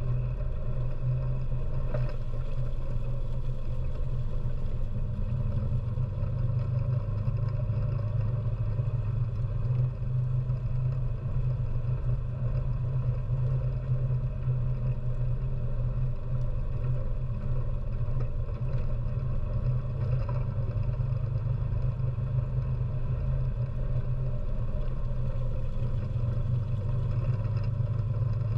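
ATV engine running at a steady speed while driving, a constant low drone with no rise or fall in pitch.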